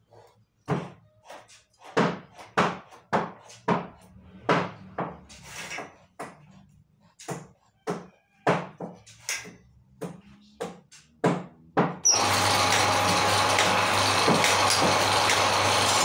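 Irregular knocks and clanks of hand work on a band-saw blade sharpening machine. About twelve seconds in, the machine is switched on and runs steadily with a low motor hum, a faint whine and occasional light ticks.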